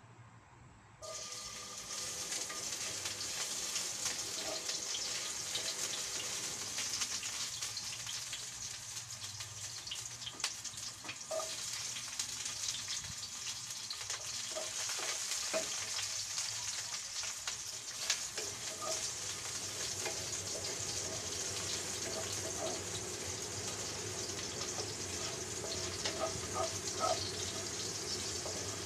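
Garlic frying in hot oil in a stainless steel wok: a steady sizzle that starts suddenly about a second in, with occasional light clicks as the pieces are stirred with a wooden spatula.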